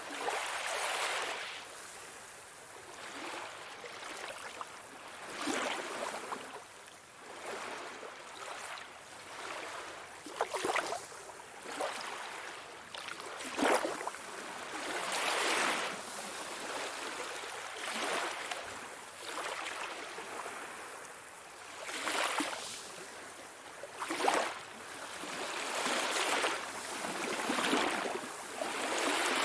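Sea waves breaking and washing in, the hiss swelling and falling every two to three seconds, with a few sharper splashes.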